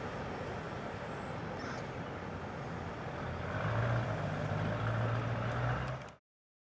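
Steady rumble of a freight train's tail end clearing the crossing, then a road vehicle's engine and tyres crossing the tracks close by and louder from about three and a half seconds in. The sound cuts off suddenly about six seconds in.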